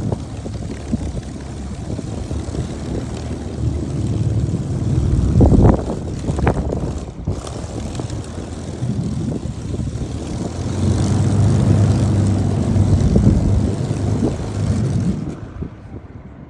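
Spitfire's V12 piston engine running and turning its propeller as it taxies, loud and steady with surges, then cutting out near the end at engine shutdown.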